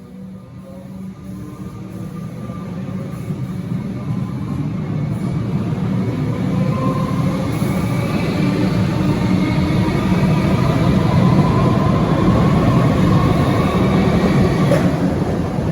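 Alstom Comeng electric train pulling out and speeding up, its traction motors whining and slowly rising in pitch over a rumble of wheels on rail that grows steadily louder. A single sharp clack comes near the end.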